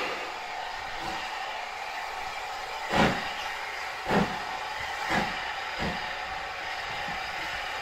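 Q class 0-6-0 steam locomotive No. 30541 starting away with a train: sharp exhaust chuffs from about three seconds in, four strong beats coming closer together as it picks up speed.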